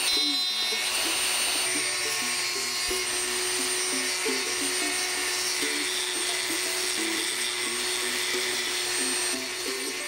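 Handheld rotary tool with a small carving bit grinding into copper and brass, a steady grinding hiss, over background music with a light plucked melody.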